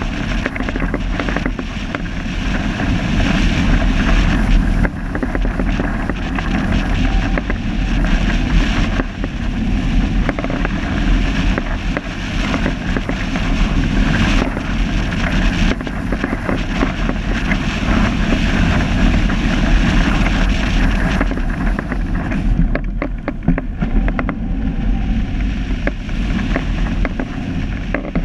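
Wind buffeting the microphone: a loud, continuous rumble with a fluctuating hiss, the hiss easing briefly a little past two-thirds of the way through.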